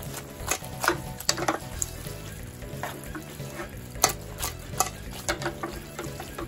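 Metal tongs clicking and scraping against a frying pan as spaghetti is tossed and stirred through hot tomato sauce, with the sauce sizzling. The clicks are irregular, the sharpest about four seconds in.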